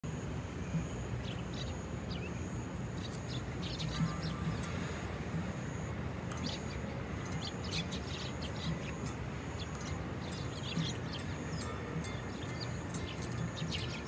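A flock of Eurasian tree sparrows chirping, many short chirps overlapping in quick clusters, over a steady low background rumble.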